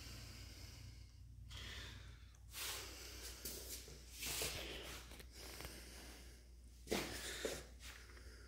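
Faint rustling and brushing handling noise, a few short bursts, over a steady low hum.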